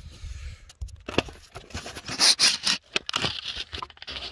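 Handling noise from a phone camera being picked up and repositioned: scraping, rustling and clicks against the microphone, loudest a little past halfway.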